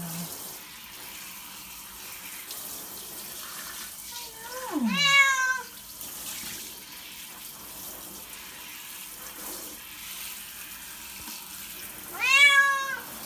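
A cat meowing twice, long drawn-out meows about five seconds in and again near the end, over the steady hiss of a shower spray running into the tub. A cat that does not like water is complaining while being bathed.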